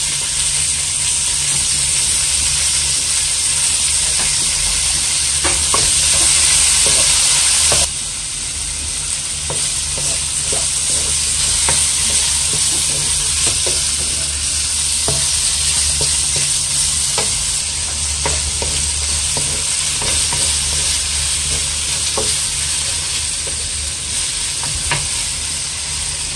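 Chicken wings, onion and garlic sizzling in oil in a non-stick wok, with scattered taps and scrapes as they are stirred. The hiss drops suddenly about eight seconds in and then carries on more softly.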